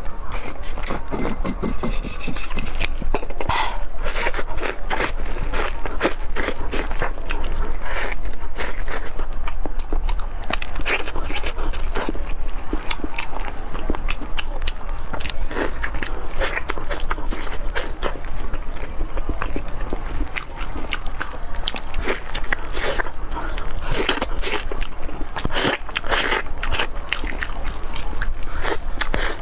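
Close-up eating sounds: biting into and chewing glazed roasted meat, a dense run of wet clicks and crackles that goes on throughout.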